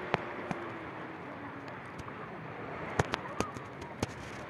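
Calm shallow sea water lapping, with a steady hiss of wind and surf, broken by several sharp clicks; the loudest comes about three seconds in.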